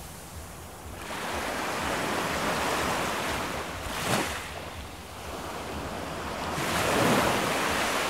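Ocean surf: waves washing in and drawing back, swelling and fading in slow surges, with one sharper rush about four seconds in.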